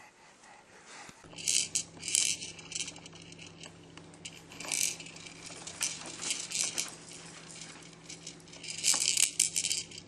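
Baby batting and spinning the hard plastic toys on an activity jumper's tray: bursts of rattling and clicking that come and go, the busiest near the end.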